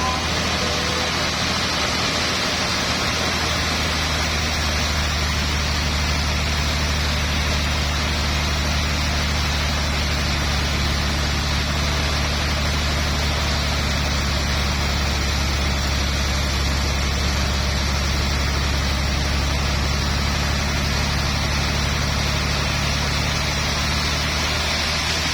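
Engine running steadily at a constant speed: a low, even hum with a steady hiss over it.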